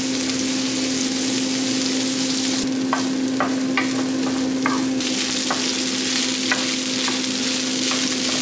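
Rice, diced vegetables and mushrooms sizzling as they stir-fry in butter in a square frying pan, with a wooden spatula stirring and scraping and giving short taps against the pan. A steady hum runs under the sizzle.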